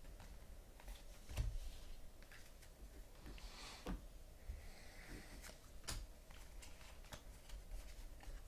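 Faint handling of trading cards: a few soft taps and a brief sliding rustle as cards are flipped through.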